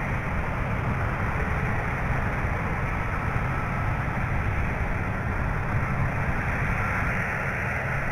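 KC-135 Stratotanker jet engines running at taxi power as the tankers roll past in a line. The sound is a steady, dense rush of noise with a heavy low end and a faint thin whine above it.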